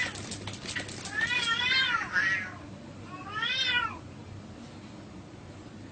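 Cats yowling in a fight: two drawn-out calls, each rising then falling in pitch, one starting about a second in and another around three and a half seconds, after a few sharp clicks at the start.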